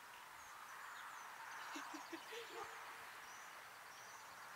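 Quiet rural outdoor ambience: a steady faint hiss with scattered faint bird chirps, and a few soft short sounds about two seconds in.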